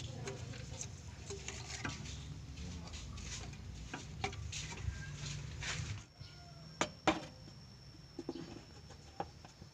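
Scattered light clicks and knocks of tools and metal engine parts being handled, over a low hum that drops away about six seconds in.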